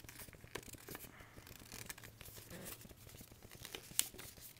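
A sheet of paper being folded and creased by hand: faint rustling and crinkling with scattered small crackles, and one sharper crackle about four seconds in.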